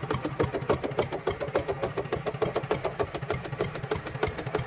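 Small engine chugging steadily, an even run of about five or six beats a second at an idle-like pace.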